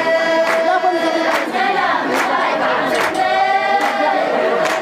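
A crowd of women singing together in unison, with long held notes, over steady rhythmic hand-clapping.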